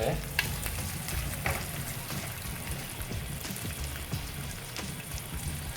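Weaver ants and garlic frying in a pan with a steady sizzle, and the stirring utensil knocking against the pan about half a second and a second and a half in.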